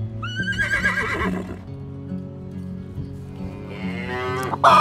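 A horse whinnying twice over background music with a steady beat: a shaky, wavering high call early on, then a call falling in pitch about three seconds in. A brief loud burst follows near the end.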